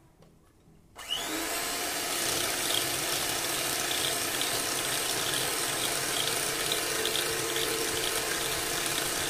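Kent 150 W electric hand mixer switched on about a second in, spinning up and then running steadily as its twin beaters whip fresh cream in a glass bowl.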